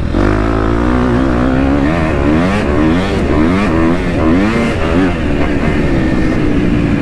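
2023 KTM 250 SX-F's single-cylinder four-stroke engine under hard riding, its pitch rising and falling quickly and repeatedly as the throttle is worked on and off. Near the end it settles into a steadier, slowly falling note.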